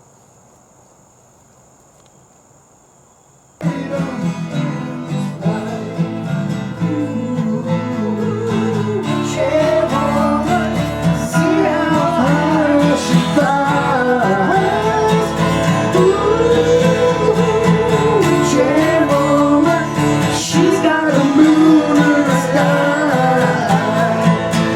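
Acoustic guitar and a singing voice performing a country-style song, starting suddenly about three and a half seconds in after a faint hush and cutting off abruptly at the end.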